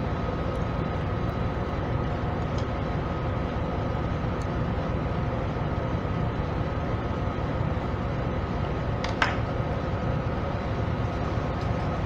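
Steady mechanical hum with a faint thin high whine over it, and one short click about nine seconds in.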